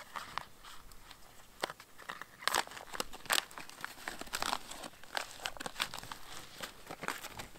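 A foil freeze-dried meal pouch crinkling and rustling in the hands as it is opened, in a string of irregular crackles, loudest about two and a half and three and a half seconds in.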